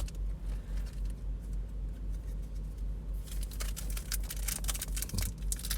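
A foil trading-card pack wrapper being handled and crinkled, with a run of quick sharp crackles starting about halfway through, over a steady low rumble.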